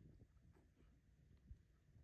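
Near silence: a faint low rumble with a few soft ticks.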